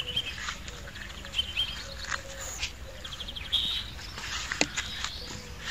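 Short high-pitched animal calls repeated irregularly, with a brief rapid trill about three and a half seconds in.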